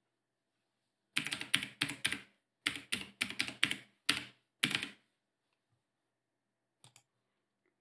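Typing on a computer keyboard: about a dozen quick keystrokes in short runs, then two faint clicks near the end.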